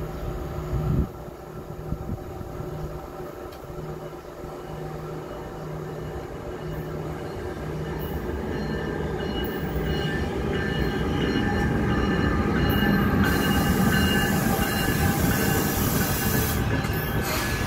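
NJ Transit train of Comet IV coaches pulling into the station. Its rumble grows steadily louder as the locomotive nears and the coaches roll past, loudest a little after halfway, with a steady high squeal throughout.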